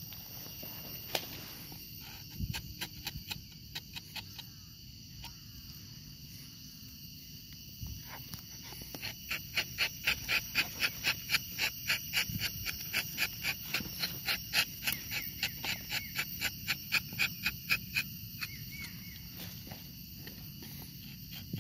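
Insects droning steadily with several high, even tones. From about nine to eighteen seconds in, a fast, even pulsing call joins them at about four pulses a second.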